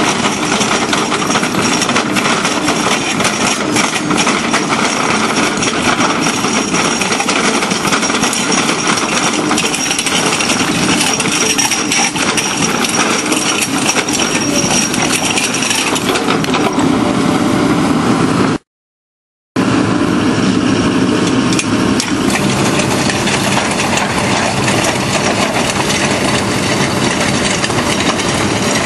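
Excavator-mounted hydraulic rotary drum cutter grinding into rock: a loud, steady grinding with a dense clatter of small impacts. It cuts out for about a second about two-thirds of the way through, then resumes.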